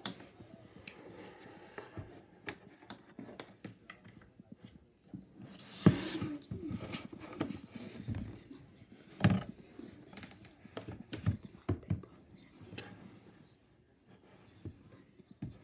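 Handling noise close to a laptop's built-in microphone: scattered taps, knocks and clothing rustle, with louder knocks about six and nine seconds in.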